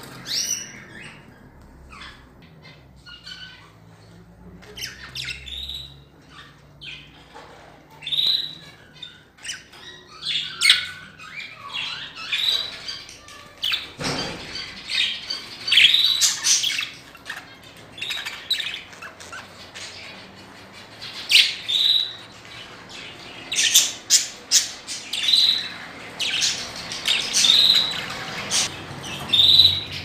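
Caged budgerigars chirping and squawking in many short, irregular calls, busier in the second half, with an occasional knock.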